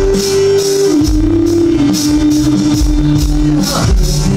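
Live band music with a steady beat and a bass line under it. A single held melody note steps down in pitch about a second in and stops near the end.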